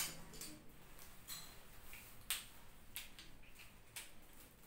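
Faint clicks and taps of a marker on a whiteboard: a handful of short, sharp ticks spread over a few seconds above a low room hiss.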